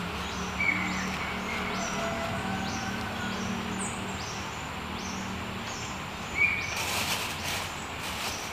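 Birds calling in dense vegetation: a regular series of short high chirps, with a few louder whistled notes, over a steady low hum. A brief burst of hiss comes about seven seconds in.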